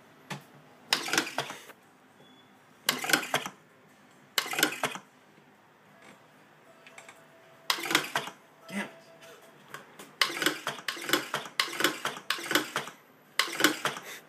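A homemade useless machine cycling: each flip of the toggle switch sets a hobby servo whirring as its arm pushes up the wooden lid and knocks the switch back off, then the lid claps shut. It goes round several times, a couple of seconds apart at first, then in quick succession near the end.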